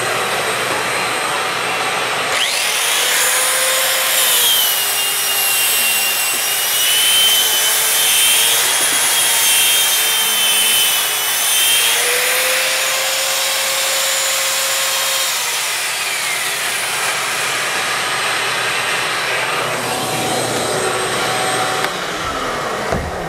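Ridgid shop-vac running steadily with a round-headed power drywall sander hooked to its hose. About two seconds in the sander spins up with a rising whine and sands joint compound on the wall patch, then winds down with a falling whine around two-thirds of the way through while the vacuum keeps running.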